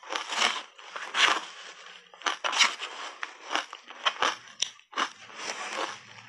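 Crunching of matcha-powdered shaved ice chewed close to a lapel microphone: an irregular run of crisp crunches, one or two a second, with a few sharp cracks.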